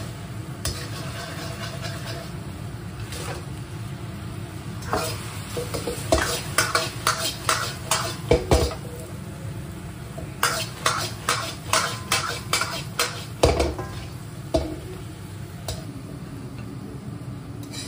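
A steel ladle clinking and scraping against a wok as fried fish pieces are tossed in sizzling sweet-and-sour sauce. The clinks come in two runs of quick strikes, about three a second, over a low steady hum.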